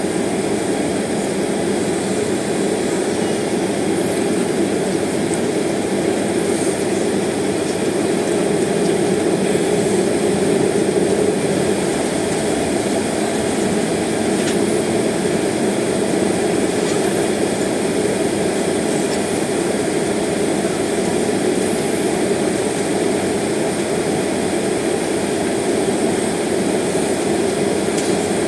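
Steady cabin noise inside a jet airliner taxiing: engines at low taxi power under a hiss of cabin ventilation, a little louder about ten seconds in as the aircraft starts rolling forward again.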